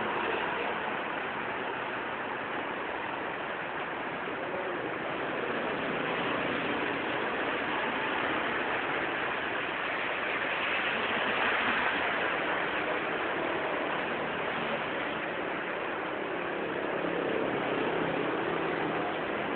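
Steady hiss of rain falling on a wet street, mixed with tyres of passing traffic swishing on the wet road. The noise swells twice, once midway and again near the end, as vehicles go by.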